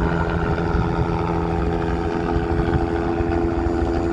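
Helicopter engine and rotor running steadily just after lift-off: a constant low rumble with a steady whine of several tones on top.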